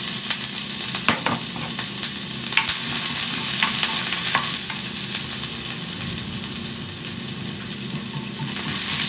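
Chopped onion and garlic sizzling in hot oil in a frying pan, stirred with a spatula that clicks and scrapes against the pan a few times in the first half.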